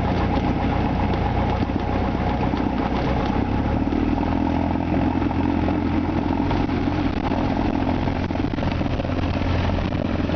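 Cessna 172's four-cylinder piston engine and propeller running steadily at low power while the plane taxis, heard from inside the cockpit. The engine note shifts slightly about four seconds in.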